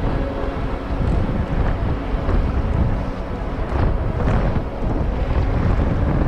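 Motorbike engine running at low road speed, with steady wind rumble on the microphone.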